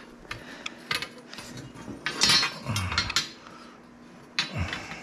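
Half-inch metal conduit clinking and scraping against a hand conduit bender as it is slid in and lined up, a few separate metallic knocks. The knock about two seconds in rings briefly.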